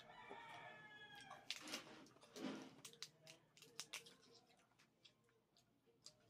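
Quiet clicks and crackles of cooked crab shells being cracked and picked apart by hand, with eating noises. In the first second there is a short high-pitched call.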